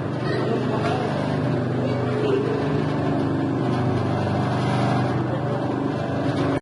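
Motor of a flour and dough mixing machine running steadily, with a constant low hum.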